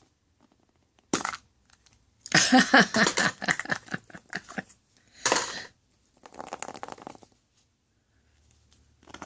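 Crinkling and crackling of toy packaging wrappers being handled and opened, in several bursts, the longest and loudest in the middle.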